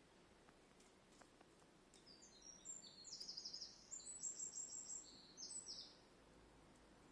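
A small bird singing a run of high, quick chirps and trills, starting about two seconds in and lasting about four seconds. A few faint clicks come before it.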